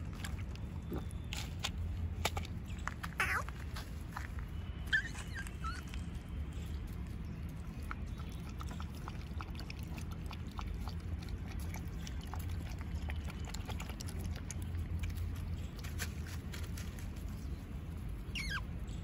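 Puppies giving short high whines, one about three seconds in and another near the end, with a few brief chirps between. Under them run a steady low background hum and scattered light clicks.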